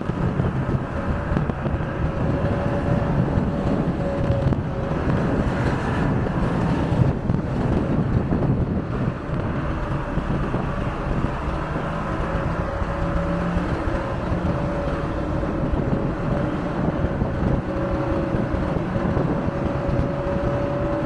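A minibus driving steadily: continuous engine and road noise with a faint, steady whine.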